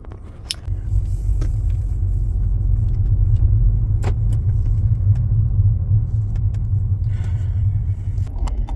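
A car driving, heard from inside the cabin: a steady low rumble of engine and road noise that swells about a second in, with a few light clicks.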